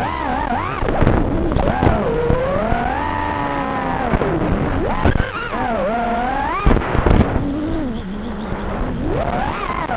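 FPV quadcopter's brushless motors whining, their pitch sweeping up and down constantly with the throttle, with a few brief crackles about a second in and again around seven seconds in.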